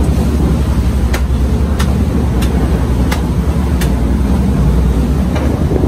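Engine running with a steady low drone, with a row of light clicks about every two-thirds of a second through the first few seconds.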